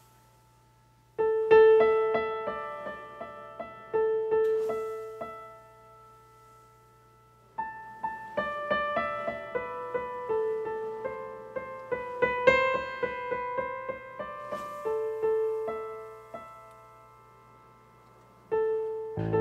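Digital stage piano playing a slow melody alone, in short phrases of notes that ring and fade, with pauses between the phrases.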